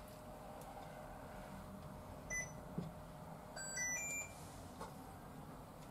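Electric cooktop's control panel beeping: a single short beep about two seconds in, then a quick run of three or four beeps rising in pitch as its buttons are pressed.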